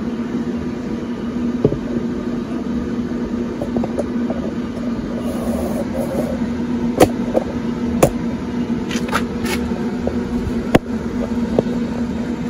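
Pellet smoker running with a steady electric hum from its fan and motor, broken by a few sharp clicks about seven, eight and eleven seconds in.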